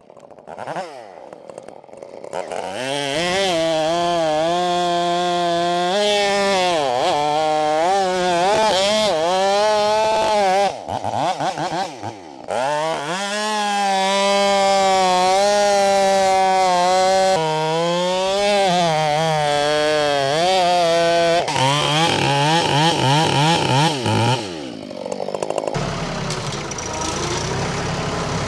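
Husqvarna 572 XP two-stroke chainsaw with a 24-inch bar running at high revs through a big pecan log, its pitch sagging and recovering as the chain bogs in the cut, with a brief let-off partway through. Near the end the saw stops and a lower engine keeps idling.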